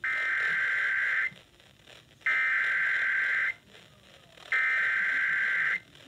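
Emergency Alert System SAME header: three bursts of digital data tones, each about 1.3 seconds long and about a second apart, coming out of a Midland weather radio's speaker. They mark the start of an EAS alert, here a severe thunderstorm warning.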